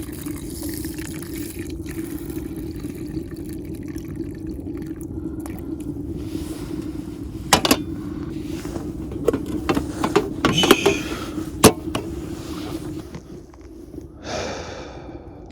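Camp cooking noises: sharp metal clinks and knocks of cookware over a steady low hum, with a short rush of noise near the end.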